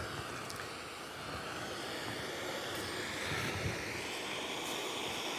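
Gas blowtorch flame burning with a steady rushing hiss.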